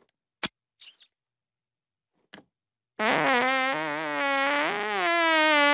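A long, drawn-out cartoon fart with a wavering pitch, starting about three seconds in, after a sharp click and a few faint small sounds.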